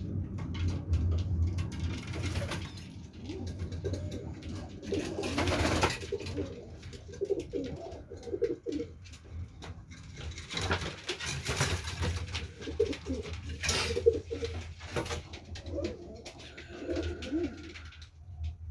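Racing pigeons cooing in their loft: low, repeated coos in several runs. There are a few short rustling noises in between, and a steady low hum underneath.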